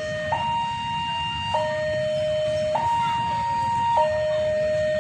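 Railway level-crossing warning alarm sounding a two-tone signal, switching between a low and a high tone about every 1.2 seconds. It warns that a train is approaching the closed crossing. Under it is a steady low rumble of traffic and engines.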